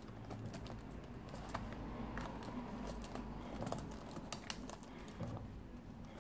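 Faint, irregular plastic clicks and taps from a replacement Dell Latitude E6410 laptop keyboard being pressed down into the laptop so its edge latches seat.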